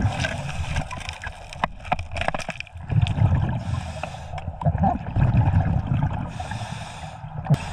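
Scuba diver breathing through a regulator underwater: low bubbling bursts of exhaled air alternating with the hiss of inhalation, about every three seconds. Scattered sharp clicks and knocks run throughout.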